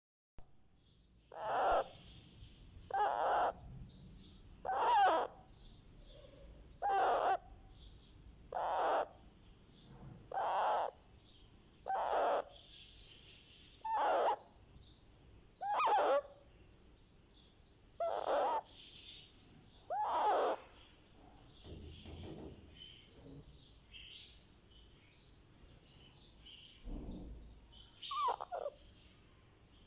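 One-month-old Indian ringneck parakeet chick calling: a loud, raspy call about every two seconds, with soft high chirps in between. The calls grow fainter in the last third.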